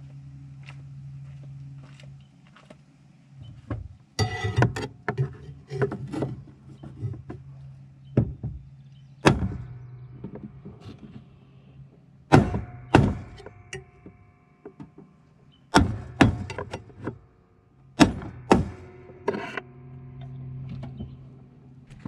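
Mallet tapping on a screwdriver to drive a plastic steering shaft bushing down into its seat on a lawn tractor: sharp taps, singly or two or three at a time, with pauses between. A low steady hum runs underneath.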